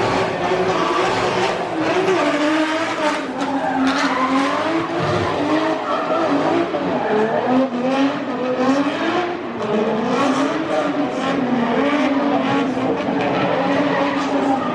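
Drift cars on track, engines revving up and down continuously while the tyres screech through the slides.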